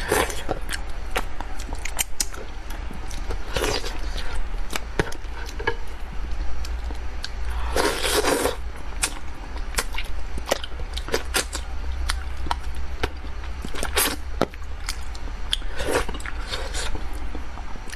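Close-miked eating of spicy braised carp: wet chewing and lip-smacking clicks, with several short slurps as pieces of fish in sauce are sucked in, over a steady low hum.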